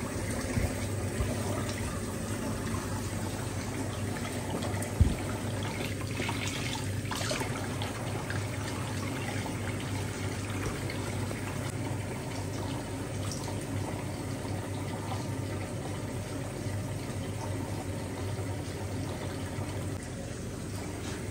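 Kitchen tap running steadily into a pan of water in the sink, with a single sharp knock about five seconds in.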